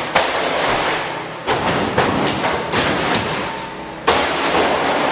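Demolition work in a large empty store: a run of heavy bangs and thuds, about one a second, ringing off the hall, with a clatter of noise between them.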